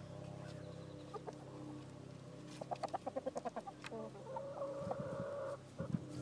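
Hens clucking: a quick run of clucks about three seconds in, then one drawn-out call lasting about a second, over a low steady hum that fades out around the middle.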